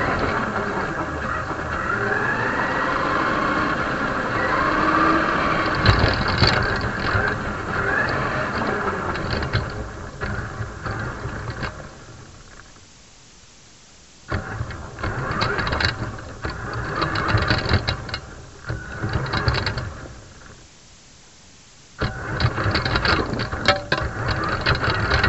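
Radio-controlled model car's drive motor heard close up from the car itself, its pitch rising and falling with speed. On rough ground it runs in stop-start bursts with knocking and rattling, going almost quiet twice for a second or two.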